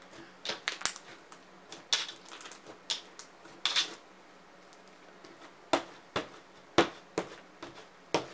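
Very thick, stiff butter slime being squeezed and worked in the hands, giving irregular sharp clicks and pops, some in quick clusters, with a pause of a second or so midway.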